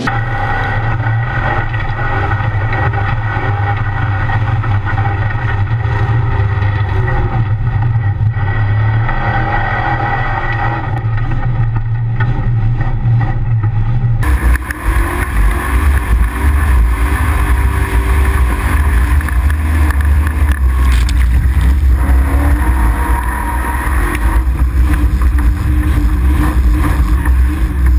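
Formula offroad (torfæra) buggy's engine running loudly, heard from inside the cockpit. The sound changes abruptly about halfway through.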